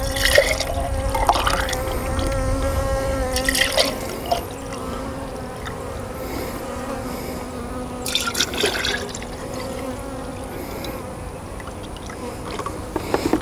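Sugar syrup pouring from a plastic jug into glass mason jars, a steady liquid splash as each jar fills. Honeybees hum steadily underneath.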